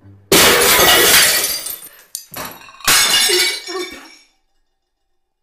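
Glass and crockery smashing on the floor: two loud crashes about two and a half seconds apart, each trailing off into scattering pieces.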